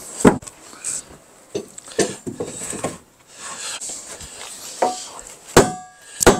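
Wooden blocks and metal fittings knocked and shifted around the bell's frame: a run of irregular knocks and clunks, ending with two metal clanks that ring briefly.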